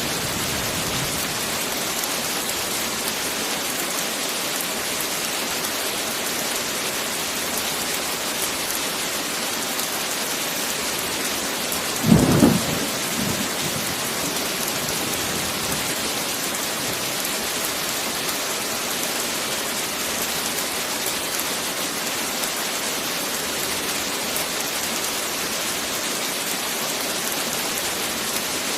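Heavy rain falling steadily, with one short, low thunderclap about twelve seconds in.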